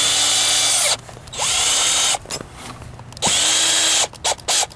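Cordless drill driving screws through a soft top's fastening strip into the plastic header channel. Three runs of about a second each, the motor spinning up and winding down each time, then several quick trigger taps near the end to snug the screw.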